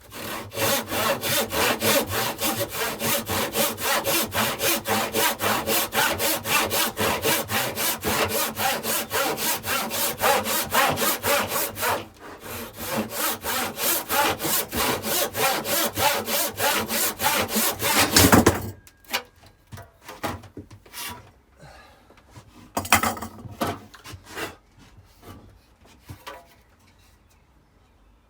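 Handsaw rip-cutting a thick square length of timber along the grain, in fast, even strokes of about three a second, with a short break about twelve seconds in. The sawing ends with a thump about two-thirds of the way through, followed by a few scattered knocks of handling.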